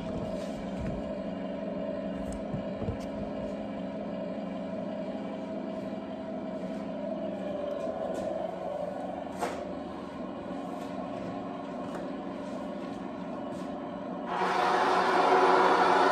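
Simulated engine sound from a 1/16 Tongde M60A3 RC tank's sound unit: a steady idle with a few light knocks as the tank is handled. About fourteen seconds in it jumps suddenly to a louder, rougher engine sound as the tank is throttled up for a test run.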